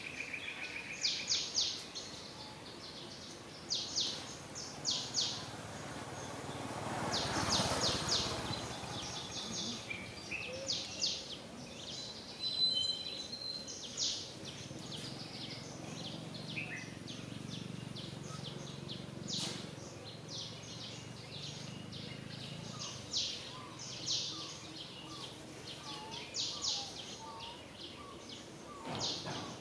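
Outdoor ambience with birds chirping in repeated short, high bursts, and a broad swell of noise about a quarter of the way in.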